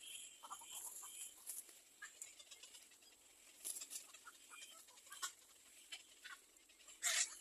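Faint, scattered chirps and cheeps of nestling birds in a nest, with small ticks, and one short louder sound near the end.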